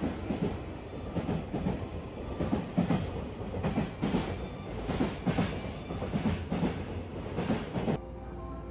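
Freight train container wagons running through a station at speed, the wheels clacking over the rail joints in repeated pairs. The train noise cuts off abruptly near the end, leaving a quieter steady hum.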